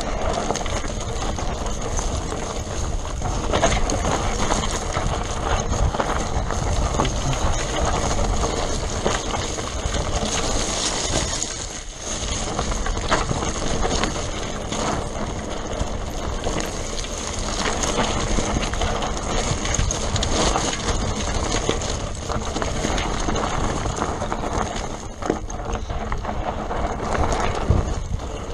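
Mountain bike descending a rocky, gravelly downhill trail: tyres crunching over stones and the bike rattling and clattering over the bumps, on and on, easing briefly about twelve seconds in.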